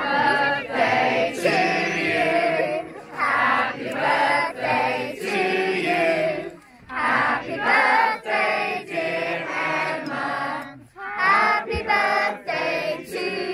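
A crowd of children and adults singing together, in phrases with short breaks between them.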